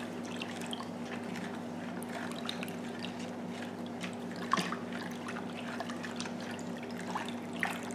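Hand stirring warm water in a plastic basin to dissolve salt: soft sloshing and small splashes, with one sharper splash about halfway through.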